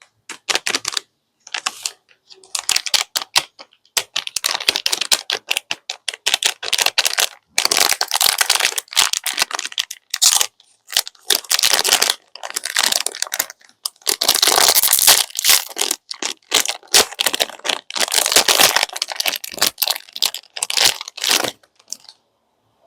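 Plastic candy wrappers crinkling and tearing as sweets are unwrapped, in irregular bursts of crackling with short pauses between them.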